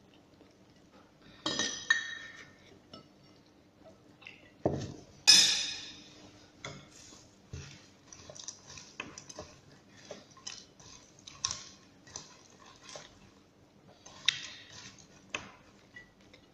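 Fingers scooping and tapping food on a ceramic plate while eating by hand. There are a few sharp clinks, the loudest about five seconds in, then many small clicks and ticks of eating and chewing.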